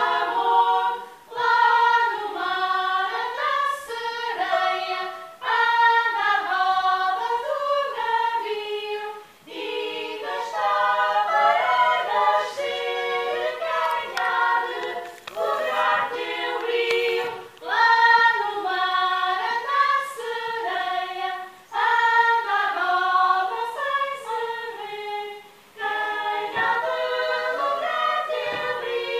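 A group of voices singing a Portuguese folk song together, in phrases of about four seconds with a short break for breath between them.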